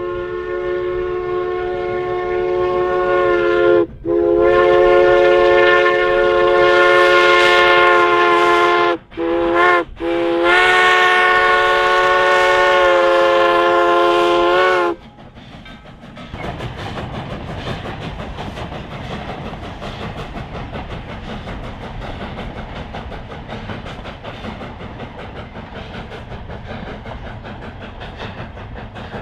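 Steam locomotive No. 81's steam whistle blowing two long blasts, a short one and a final long one, the long-long-short-long grade-crossing signal. After the last blast the locomotive works past, its steam exhaust chuffing and the wheels clacking on the rails.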